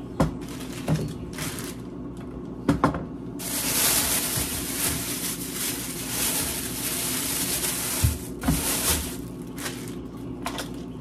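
Kitchen work noise: a few sharp knocks and clatters, then a steady rushing hiss that starts suddenly about three seconds in and lasts about six seconds, with two more knocks near its end.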